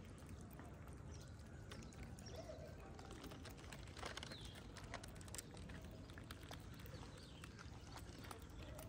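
A cat chewing and licking wet food from a plastic tray: a faint, irregular run of small wet clicks and smacks.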